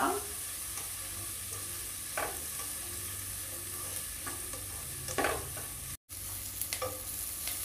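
Chopped onion, green chillies and curry leaves frying in oil in a nonstick pan with a steady sizzle, while a slotted nylon spatula stirs and scrapes across the pan every couple of seconds. The sound drops out for a moment about six seconds in.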